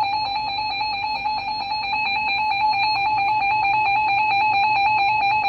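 Emergency Alert System attention signal: a loud, steady two-tone electronic alarm tone with a fine flutter. It is the alert tone that announces a new severe thunderstorm warning about to be read.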